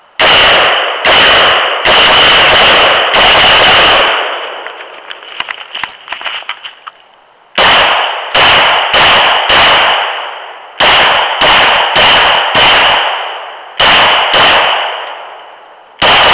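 Gunshots fired one at a time, about one a second: a string of about five, a few seconds of light clicks and rattles, then about ten more in quick groups of two to four. The later shots come from a Glock 17 Gen 4 9mm pistol.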